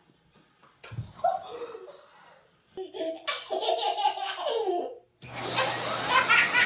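Bursts of laughter, a young child's among them; then, about five seconds in, an upright vacuum cleaner starts running with a steady rushing noise and low hum, a child's voice carrying over it.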